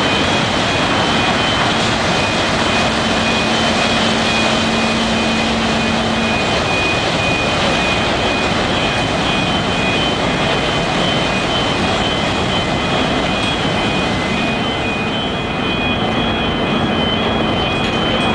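Ferry Blue Star Patmos's engines and propellers running as it manoeuvres stern-first onto the quay, a loud steady noise of machinery and churning propeller wash. A constant high whine sits over it, with a low hum that fades about six seconds in.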